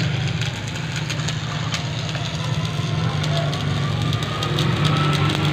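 Electric arc welding on steel: the arc crackles and sputters irregularly over a steady low hum.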